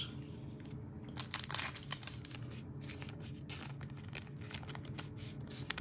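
Faint rustling and scattered light clicks of trading cards and thin clear plastic sleeves being handled and shuffled, with one sharper click near the end, over a steady low hum.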